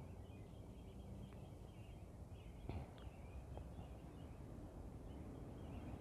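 Faint outdoor ambience: a low background rumble with distant birds chirping softly, and a small tap about two and a half seconds in.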